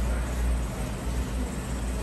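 Steady low rumble and hiss of background noise, with no single clear event standing out.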